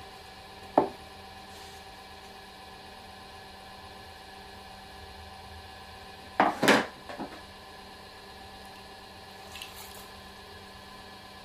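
Potter's hand tools being picked up and set down with sharp knocks and clatters: one about a second in, a louder cluster around six and a half seconds, and a light tap near ten seconds, over the steady hum of the pottery wheel's electric motor.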